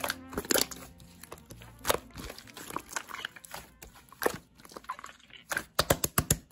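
Slime being squeezed and pressed, making irregular sharp clicks and pops, with a quick run of clicks near the end.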